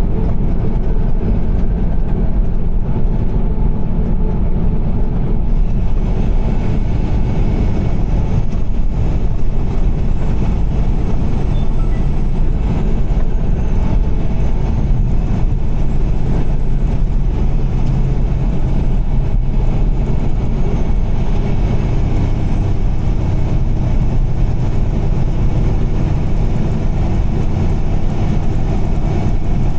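Steady low rumble of a car driving at highway speed: road and tyre noise with engine drone, even throughout.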